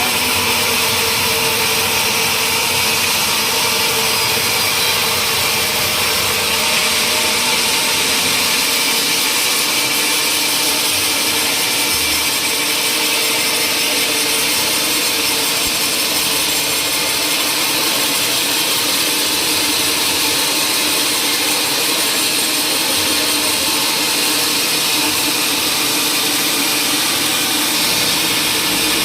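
A power tool cutting or shaping wood, making a steady hissing, rasping noise that holds even throughout.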